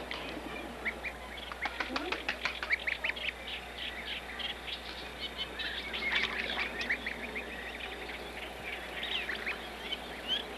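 Goslings peeping, a rapid stream of short high calls from several birds, busiest about two seconds and six seconds in. These are their contact calls, a reassurance that their foster mother is near.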